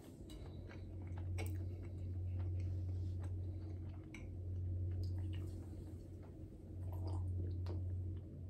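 A person drinking from an aluminium drink can: quiet swallowing with small clicks of mouth and can, over a low hum that swells and fades in stretches.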